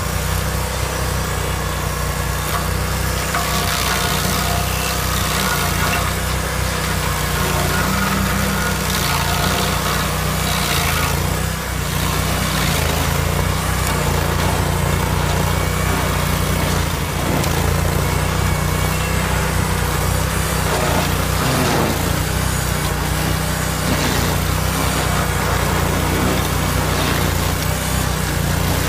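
Vermeer SC252 stump grinder running steadily, its spinning cutter wheel grinding a tree stump down below ground level and throwing out wood chips and soil: a constant engine drone under a rough grinding noise that swells at times as the teeth bite.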